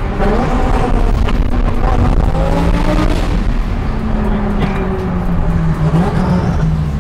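Twin-turbo Lamborghini engine heard from inside the cabin while driving. Its note climbs in the first second, then falls slowly over the next few seconds as the car eases off.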